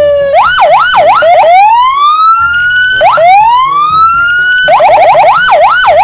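Electronic police car siren cycling through its tones: a steady note falling slightly, a quick up-and-down yelp, two long rising wails, then the quick yelp again near the end.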